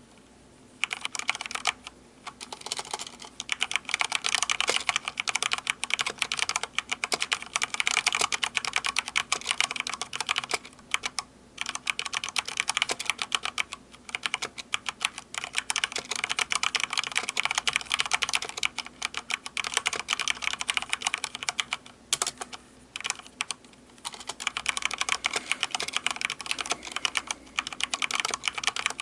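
Fast, continuous typing on a Corsair K70 RapidFire mechanical keyboard with Cherry MX Speed linear switches: a dense run of key clicks that starts about a second in and stops briefly a few times.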